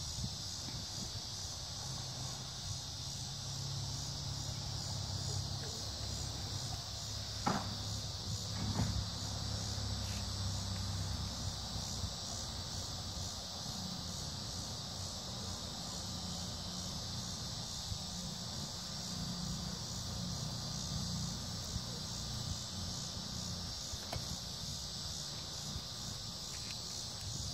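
Steady high-pitched chorus of chirring insects, with a low rumble underneath and two faint knocks about seven and nine seconds in.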